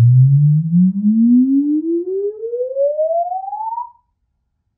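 A 21-inch subwoofer playing a Room EQ Wizard sine sweep: one loud tone gliding steadily up from deep bass to about 1 kHz, which cuts off just under four seconds in. It is a room-response measurement, run to find bass modes for placement and EQ.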